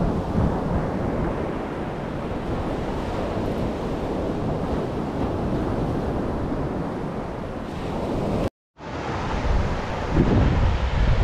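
Sea surf washing on a sandy beach, a steady rushing noise, with wind buffeting the microphone. A short silent gap comes about eight and a half seconds in, and after it the low wind rumble on the microphone is heavier.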